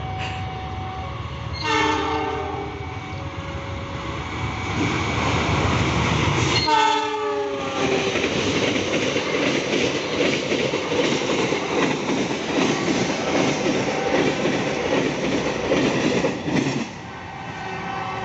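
Argo Wilis diesel-hauled express passenger train passing close at speed. The locomotive's multi-tone horn sounds twice, the second blast dropping in pitch as it goes by, followed by the steady rush and rail clatter of the coaches, cut off suddenly near the end.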